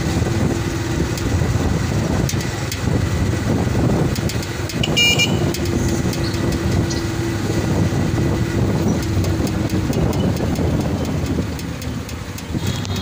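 Engine and road noise from a moving vehicle, steady throughout. A short, high-pitched horn toot sounds about five seconds in.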